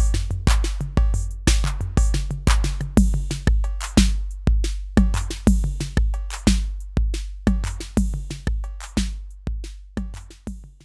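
Yocto TR-808 clone drum machine playing a beat: a long, booming bass drum about twice a second, with sharp noisy hits and quick hi-hat ticks between, fading away near the end.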